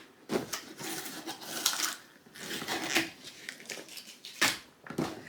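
Crinkling and crunching of a snack bag and its contents being handled, a run of short irregular crackles.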